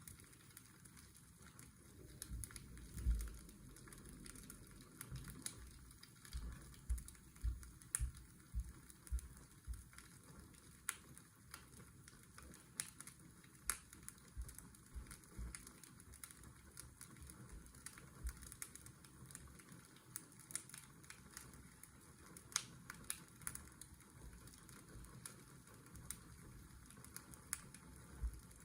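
Fireplace crackling: irregular sharp clicks and pops over a steady, soft washing-machine hiss. A series of soft low knocks stands out about 3 seconds in and again between about 6 and 9 seconds.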